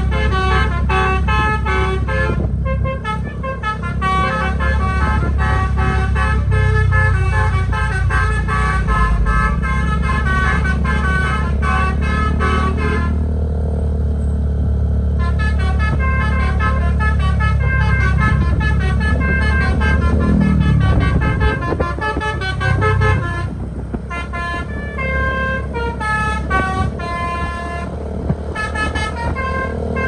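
Basuri telolet horn on a tour bus playing a fast melody of short tooting notes, over the steady low rumble of the bus engine. The melody stops for about two seconds midway, then starts again.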